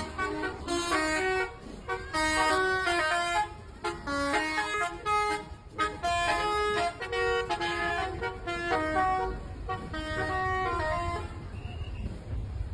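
Indonesian bus telolet horns playing quick melodic tunes in bursts, several notes at once stepping up and down. The tunes stop about eleven seconds in, leaving a low traffic rumble.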